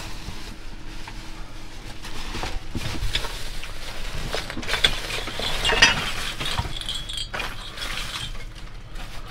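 Hands rummaging through discarded junk in a dumpster: scattered clinks, knocks and rustles of objects being picked up and moved about, with the sharpest knocks a little past the middle.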